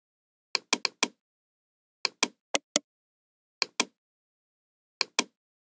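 Computer mouse button clicking: about a dozen sharp clicks, mostly in quick pairs, with silence between them.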